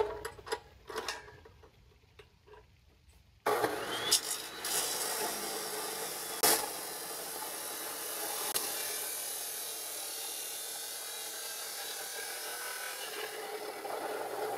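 A few light knocks, then from about three and a half seconds in a power tool cutting steel stock, a steady rasping noise with a single sharp crack partway through.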